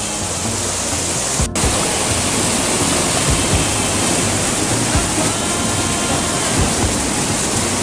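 Mountain stream water rushing over boulders in a small cascade, close up: a loud, steady rush that cuts out for an instant about a second and a half in.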